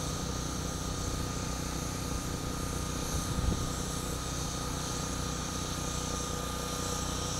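Steady low motor drone with a thin, steady high tone above it, and a brief knock about three and a half seconds in.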